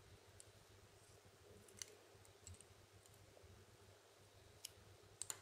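Near silence broken by about six faint, scattered clicks as hands handle a wooden tatting shuttle and thread it.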